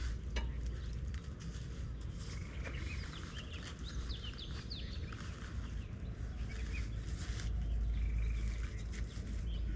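Small birds chirping in many short calls, busiest from about three seconds in, over a steady low rumble, with scattered light clicks and knocks from hands working on the vehicle's roof frame and latches.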